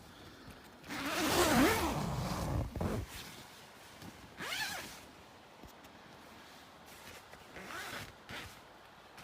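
A zipper being pulled in three strokes: a long, loud pull about a second in, then two shorter pulls near the middle and near the end.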